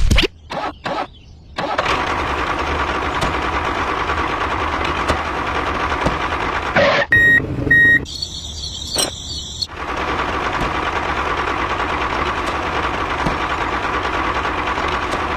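A small motor running steadily, with two short high beeps about seven seconds in, followed by a brief burst of electronic chirping before the motor sound resumes.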